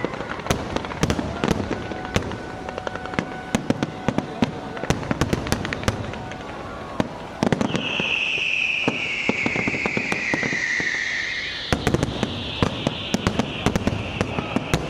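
Fireworks going off in quick succession: many sharp cracks and bangs. About halfway through, a loud hiss sets in suddenly, slides slightly downward in pitch and fades over several seconds.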